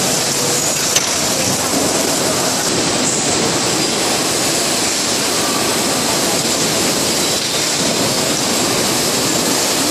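Steady mechanical din of an automatic bottle-packing line, with conveyors and a carton case packer running, and one sharp click about a second in.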